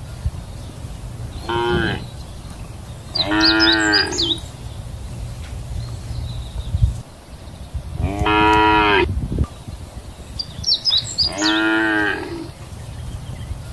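Cows mooing: four separate moos, the longest about a second and a half. A steady low rumble runs underneath.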